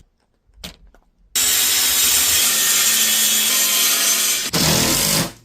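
Power saw cutting through a sheet of plywood: it starts suddenly about a second in and runs steadily for about three seconds, followed by two shorter bursts of cutting near the end.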